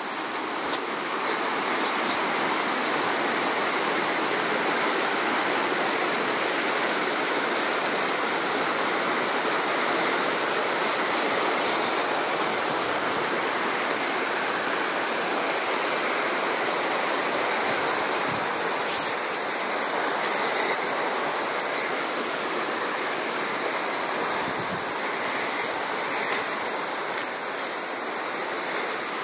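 Mountain river rushing over stones below a wooden bridge, a steady hiss of flowing water.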